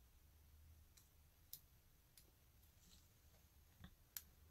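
Near silence with a few faint, sharp clicks, about five in all, as the cell stack and metal terminal plate of a torn-down alkaline PP3 battery are handled in the fingers.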